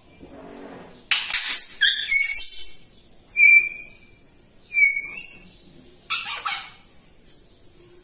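African grey parrot calling: a harsh, noisy burst of sound, then two short whistled notes a second and a half apart, then another brief harsh call.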